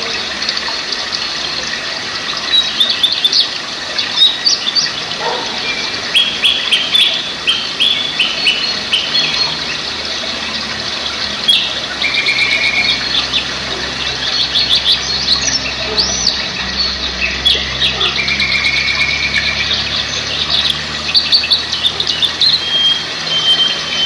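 Songbirds singing, with short chirps and trills repeated again and again, over the steady rush of a rocky mountain stream.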